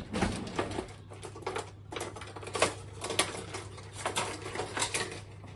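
Irregular light clicks and taps as pastry parcels are handled and set down on a baking sheet, the sharpest knock about two and a half seconds in.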